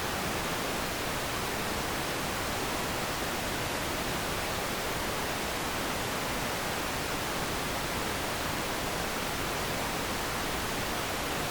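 Steady TV static: an even, unbroken hiss with no changes.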